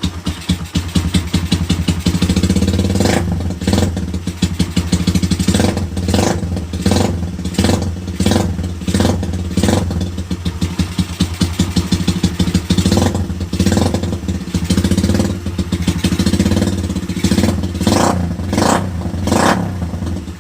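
Yamaha R150's 150cc single-cylinder four-stroke engine running through an aftermarket open exhaust pipe: it idles, then is revved in a long series of quick throttle blips, several a second in places, easing back toward idle near the end.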